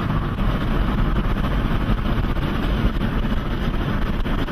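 Steady low rumble inside a vehicle's cabin, with the windows rolled up.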